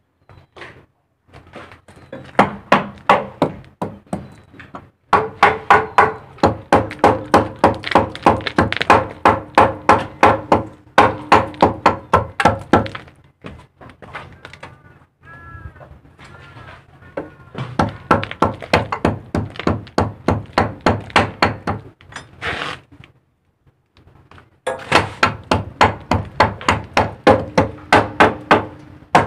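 Hammer striking the metal of a fishing boat's deck winch drum, blows coming in fast runs of about three a second with short pauses between runs; each blow rings.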